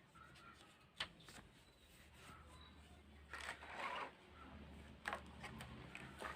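Faint handling noises: a few sharp clicks about a second in and again near five seconds, and a brief rustle in the middle, over a low steady hum.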